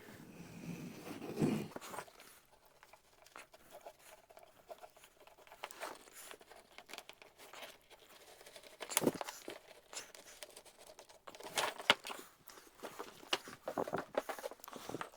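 Scattered light knocks, clicks and rustling from hand work with wood and materials at a workshop bench. The sharpest knocks come about nine and twelve seconds in.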